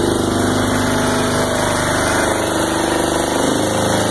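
An engine running steadily at a low, even speed, its tone shifting slightly about three and a half seconds in.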